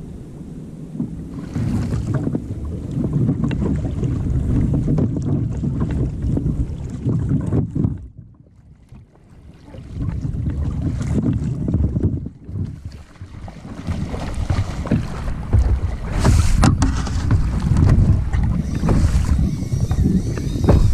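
Wind rumbling on the microphone of a camera mounted on a sea kayak, with water sloshing and splashing against the hull and paddle. The wind drops away for a couple of seconds about eight seconds in.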